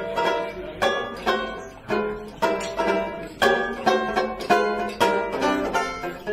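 Banjo strumming chords in a steady rhythm, about two strokes a second, as the song's instrumental introduction. Low double-bass notes come in near the end.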